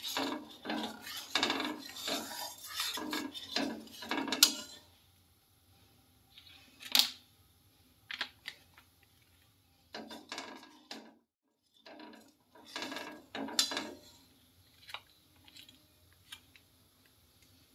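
Flat metal spatula scraping and stirring milk in a metal kadai. A quick run of strokes fills the first four or five seconds, a single clink comes about seven seconds in, and shorter bursts of scraping follow around ten and thirteen seconds in, with quiet gaps between.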